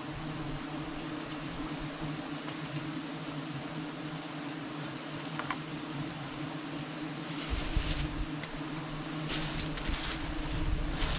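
A swarm of giant honeybees buzzing around a nest being harvested, a steady dense hum. In the second half a low rumble and a few short rustling, crackling noises join in.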